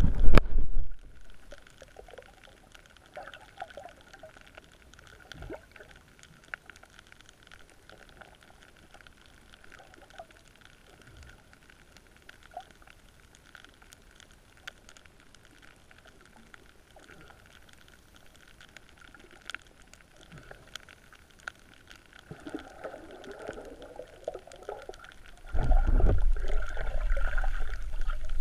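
Scuba diver's exhaled bubbles from the regulator gurgling past the underwater camera. There is a short loud burst right at the start, then a long quiet stretch with faint scattered clicks. A longer, loud stream of bubbles comes in the last three seconds.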